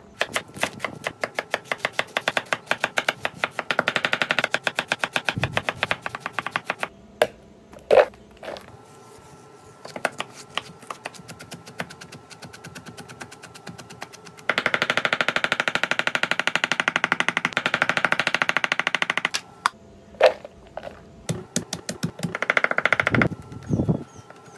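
Chef's knife rapidly chopping vegetables (celery, then garlic) on a wooden butcher-block board: runs of quick, even knife strikes with short pauses between, and a few louder single knocks.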